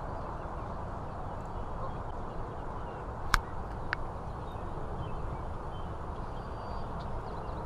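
Steady outdoor background noise with faint bird calls. Two sharp clicks a little over half a second apart come near the middle.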